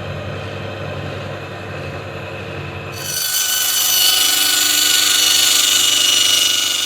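Portable bandsaw sawmill running: its engine runs steadily, then from about three seconds in the blade cuts through wood with a loud, high-pitched sawing noise.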